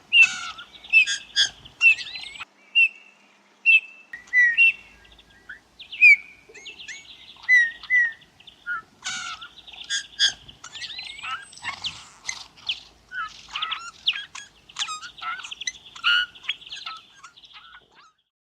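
Eurasian bullfinches calling: short, soft whistled notes, many dropping in pitch. From about nine seconds in they thicken into dense overlapping chirping.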